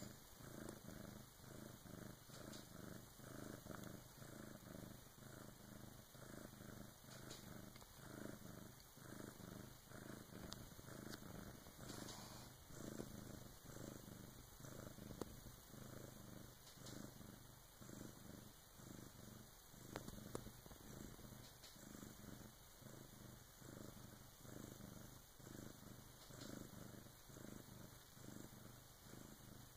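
Bengal cat purring softly and steadily, the purr swelling and easing in an even rhythm with each breath.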